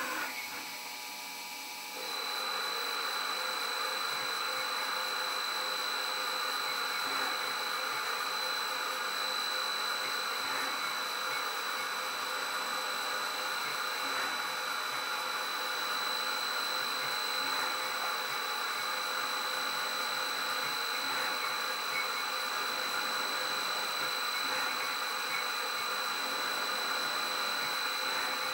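Hardinge CHNC CNC lathe cutting a 1/2-13 thread in a G76 threading cycle: the spindle, a three-phase motor on a variable-frequency drive, turning at 250 RPM with coolant flowing over the work. A steady high whine and a steady running noise set in about two seconds in and hold evenly after that.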